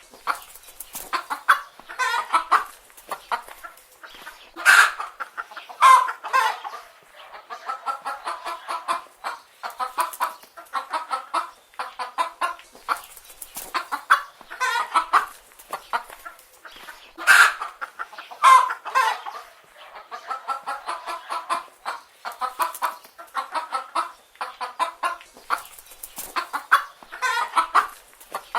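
Chicken hens clucking continually in quick series of short calls, with a few louder squawks standing out.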